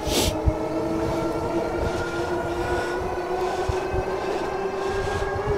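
The Engwe Engine Pro's 750 W hub motor whining under full pedal assist as the bike speeds up to about 28 mph. The whine is steady and rises slightly in pitch, over a low rumble of wind and fat tyres.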